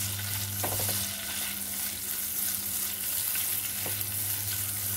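Onion petals sizzling as they fry in melted butter and a little oil in a pan, stirred with a spatula, with a couple of short scrapes.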